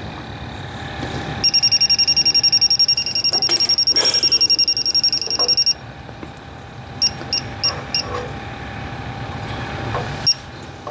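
Electronic refrigerant leak detector beeping: a rapid, high-pitched beep about seven times a second for about four seconds, then a few scattered single beeps. The fast beeping signals refrigerant, here leaking from the unit's poorly welded joints.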